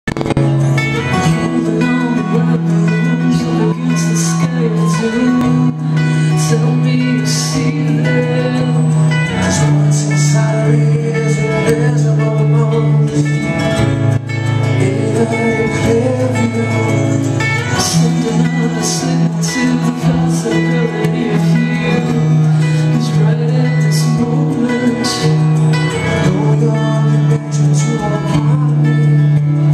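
Live rock band playing: electric guitar, bass guitar holding long low notes that change every few seconds, and drums with repeated cymbal hits, under a male lead voice singing.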